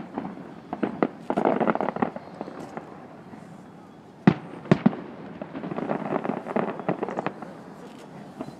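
Aerial fireworks display: sharp bangs of shells bursting near the start, about a second in and again about four to five seconds in, with spells of dense crackling from crackling-star effects in between.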